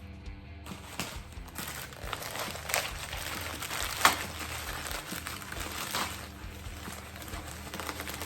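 Packaging being ripped open by hand: irregular crinkling and tearing, with one sharp snap about four seconds in.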